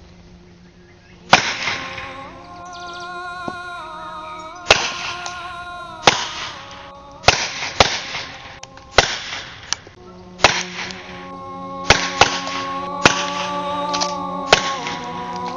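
Springfield Armory 1911-A1 .45 ACP pistol, fitted with an Import Ventures direct-thread suppressor, firing about eleven single shots at uneven intervals. Each shot is a sharp crack with a short tail of ringing, heard over background music with long held tones.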